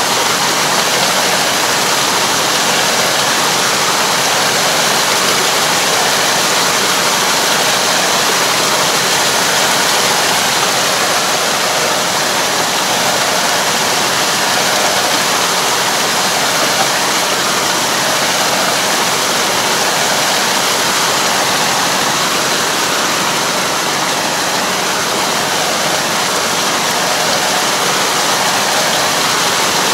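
Steady rushing and splashing of muddy paddy water churned by a Kobashi TX313 puddling harrow pulled through a flooded rice field, with the tractor's engine faint underneath.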